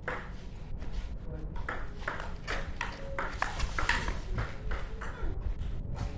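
Table tennis rally: the celluloid-type ball clicks sharply off the bats and the table top in a quick, irregular series of pings.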